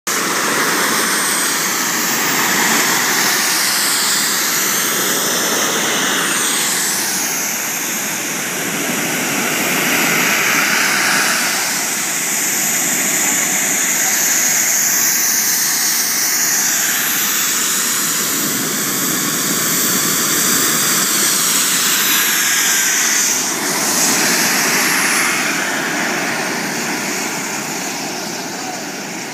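Engines of radio-controlled model jets running loudly, a jet-like roar with a high whine that rises and falls in pitch several times as the throttle changes, easing off near the end.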